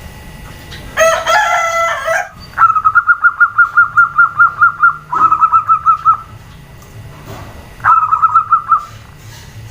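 Zebra doves calling: fast runs of short, even, high notes, about eight a second, one long run and a shorter one near the end. About a second in, a louder, lower bird call with a rich, falling tone lasts just over a second.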